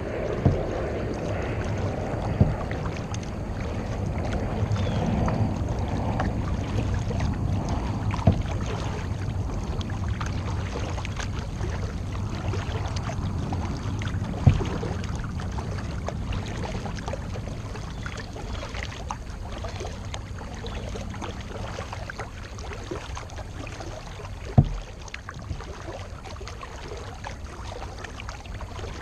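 Kayak being paddled: steady sound of paddle strokes moving through the water, with a handful of sharp knocks spread across the stretch.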